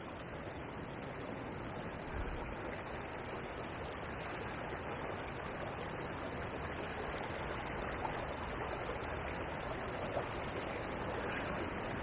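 Small river running steadily, a rushing of fast water over a shallow run.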